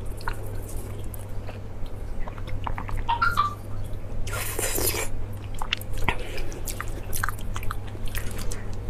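Close-miked chewing of saucy fish, with many small wet clicks and mouth noises and one louder sucking burst about halfway through, over a steady low hum.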